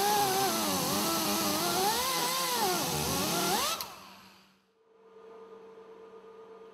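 Handheld power tool cleaning the lifting groove of a large marine diesel piston crown, its motor whining with a hiss and its pitch wavering up and down as it is pressed into the work. About four seconds in it rises briefly and stops, leaving only a faint steady hum.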